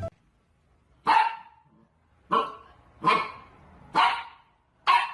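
A dog barking five times, single short barks about a second apart.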